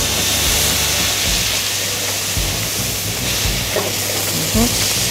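Rum poured into a hot frying pan, sizzling and hissing steadily as it deglazes the pan. The sizzle starts suddenly as the rum hits the pan.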